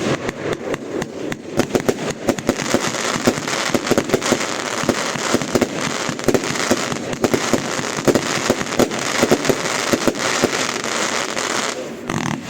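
Fireworks going off: a dense, continuous run of rapid cracks and pops that eases off near the end.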